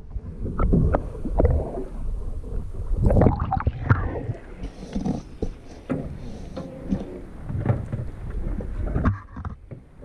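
River water gurgling and splashing against an action camera held in and around the water, muffled and rumbling while the camera is submerged, with irregular knocks and sloshes.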